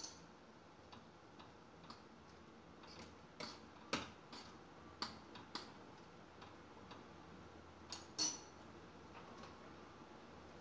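Faint, irregular clicks and light knocks of things being handled on a kitchen counter, with sharper knocks about four seconds in and again near eight seconds.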